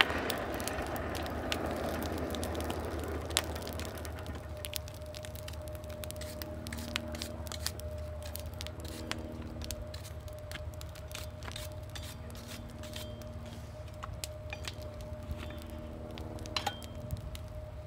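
Burning coal in a forge fire crackling with many sharp pops and snaps, over a steady low rumble and a thin steady hum.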